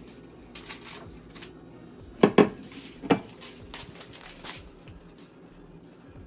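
Cookware handled on an electric stovetop: scattered clacks and knocks, the loudest two close together just after two seconds in and another about three seconds in.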